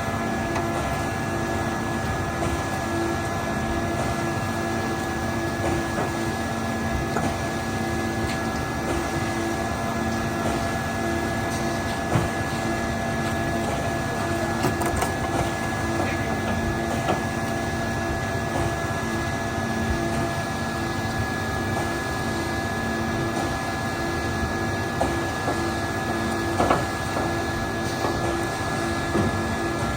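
An engine running steadily at a constant speed: an even mechanical drone with several fixed tones that never change, and a few faint clicks.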